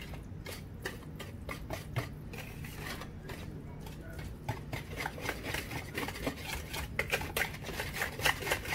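A utensil beating thick cornbread batter in a bowl: rapid wet scraping and clicking strokes against the bowl, faster and louder in the second half.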